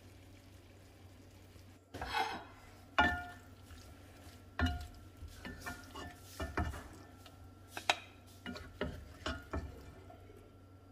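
Wooden spoon and spatula knocking and scraping against a ceramic plate and a skillet while food is served out, a string of irregular knocks and scrapes starting about two seconds in, the loudest about a second later.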